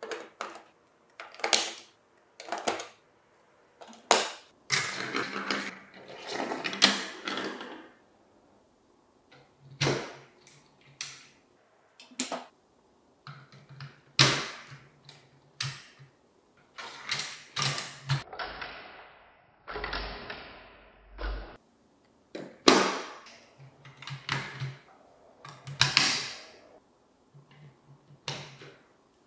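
Marbles rolling along plastic marble-run track and clacking against the pieces and each other, in a string of short runs that start and stop suddenly. A low hum comes and goes in several stretches.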